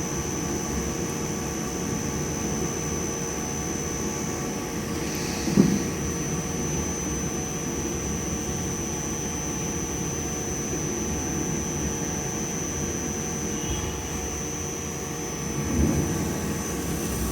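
CNC lathe running steadily: a dense low machine rumble under a constant high whine, with a short knock about five and a half seconds in.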